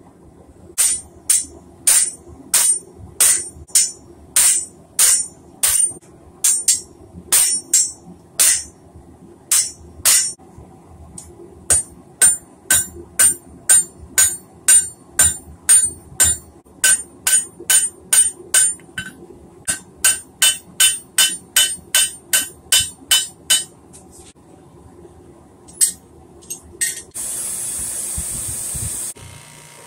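Hand hammer striking red-hot steel on an anvil while forging a chisel, about two blows a second in runs with short pauses, each blow ringing high. Near the end a bench grinder grinds the steel with a steady hiss.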